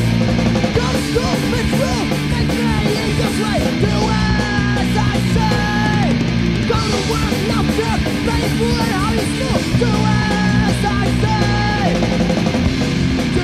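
Punk rock band playing a song: distorted electric guitars, bass and drums driving hard, with a melody of long held notes on top.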